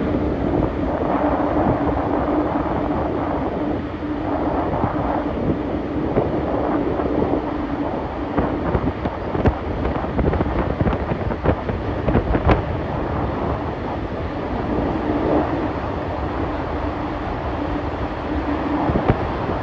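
A ship's engines hum steadily over wind noise on the microphone, with a few sharp knocks about halfway through.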